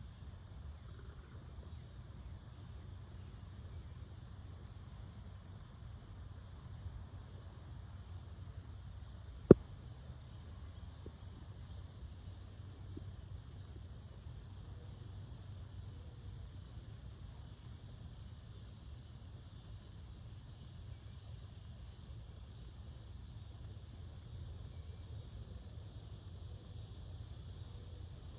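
Dusk insects trilling in one steady, high, continuous chorus, over a faint low rumble. A single sharp click sounds about nine and a half seconds in.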